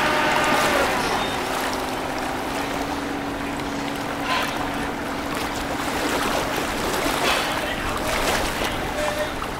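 Small wooden river cargo boat's engine running with a steady hum as it motors past, over water washing from its bow wave.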